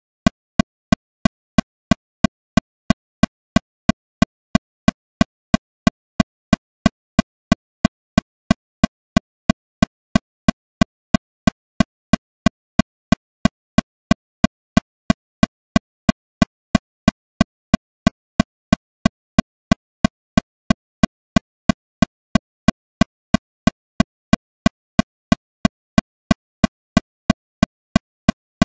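Metronome clicking steadily at 182 beats per minute, about three clicks a second, every click the same strength, with silence between them.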